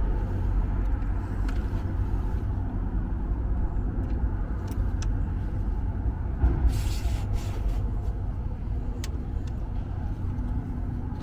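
Dahon Vybe D7 folding bike being unfolded by hand: scattered sharp clicks as its hinges, stem latch and seatpost clamp are worked, with a brief rustle about seven seconds in, all over a steady low rumble.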